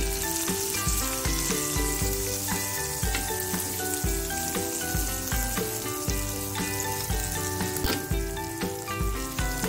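Seasoned beef ribs sizzling on a grill pan over a low flame as they are turned with tongs. Background music with a steady beat plays over it.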